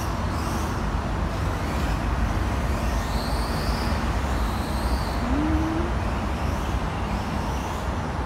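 Steady outdoor road-traffic noise, a low rumble with hiss, with several high-pitched whines rising and falling in pitch from electric RC cars running on the track.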